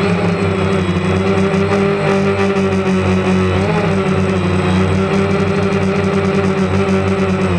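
DJI Phantom quadcopter's motors and propellers humming steadily in flight, the pitch shifting slightly now and then.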